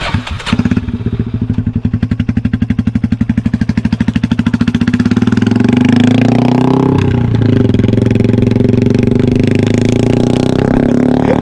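Single-cylinder engine of a custom bobber motorcycle built on a Yamaha Scorpio, running with rapid, even firing pulses, then picking up revs about halfway through and holding a louder, steadier note.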